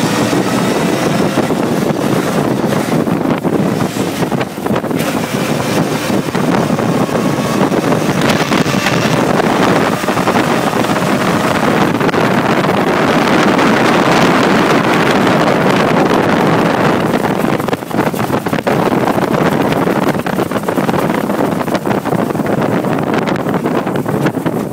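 Brasier Brooklands racing car under way, its engine running steadily beneath heavy wind buffeting on the microphone. The sound swells for a few seconds around the middle and dips briefly about two-thirds of the way through.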